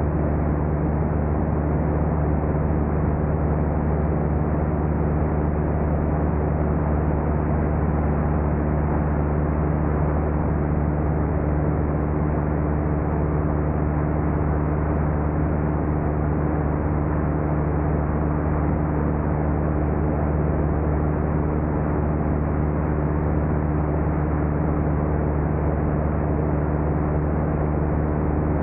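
Light propeller airplane's engine and propeller droning steadily in cruise, heard from inside the cabin.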